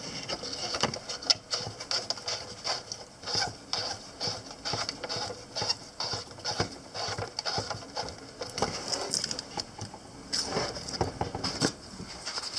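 CB radio receiver crackling and popping irregularly with skip, the static of distant band conditions. There is no steady buzz from inverter interference on it.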